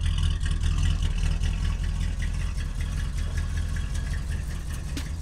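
Classic car driving: a steady low engine and road rumble with many small irregular rattles over it, the body rattling on the move.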